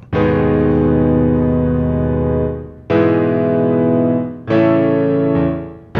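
FL Studio's FL Keys piano plugin playing three held chords, triggered over MIDI from the Sound Prism Pro chord app on an iPad. The new chords start about three seconds and four and a half seconds in, and each rings and fades before the next.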